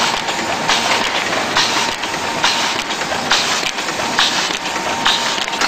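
Automatic sheet-fed offset printing press running, its feed mechanism clacking in an even rhythm a little faster than once a second over a steady mechanical clatter and a faint whine.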